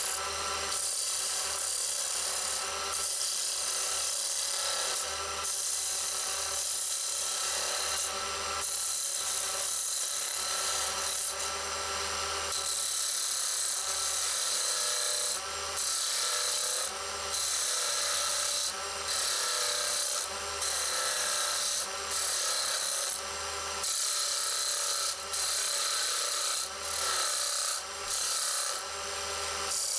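A Draper mini wood lathe running with a steady motor whine while a hand-held turning tool cuts a spinning wooden spindle. The cutting is a continuous scraping hiss of shavings coming off the wood, and it breaks off briefly every second or two as the tool lifts away, more often toward the end.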